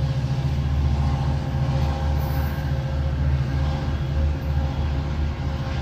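EMD F59PHI diesel locomotive pulling away under power, a steady heavy engine drone.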